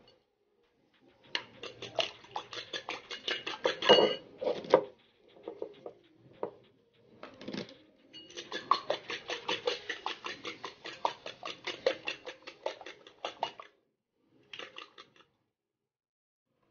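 Raw eggs being beaten with a wire whisk in a glass bowl: the whisk clicks quickly against the glass, about seven strokes a second, in spells with short pauses between them.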